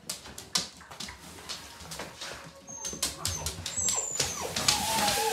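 Gerberian shepsky puppies whimpering, with a few short high squeaky whines midway, over scuffing and crinkling as they nose and push against a nylon play tunnel on a wood floor.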